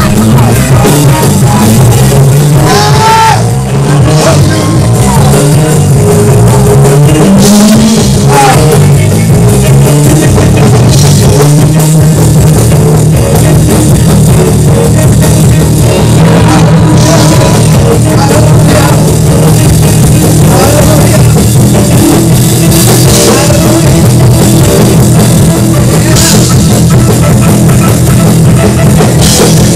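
Live gospel praise-break music from a church band with drums, played loud and fast-paced without a break.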